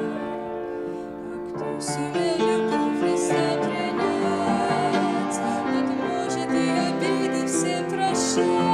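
A woman singing a Russian Christian song to her own grand piano accompaniment.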